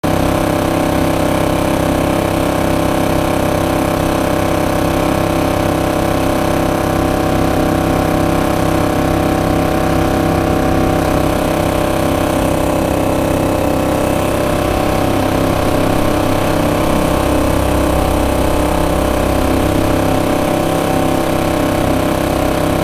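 Small outboard motor on a trimaran kayak running steadily, pushing the kayak along. A little more low rumble from about two-thirds of the way in.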